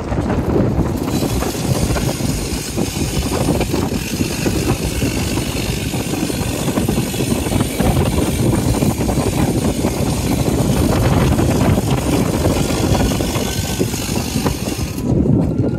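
Steady rumbling vehicle noise, with a distant siren starting to wail near the end.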